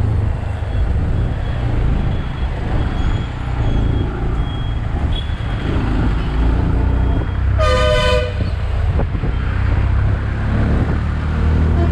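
Tuk-tuk (auto-rickshaw) engine running with road and traffic noise while riding, and a vehicle horn toots once, briefly, about eight seconds in.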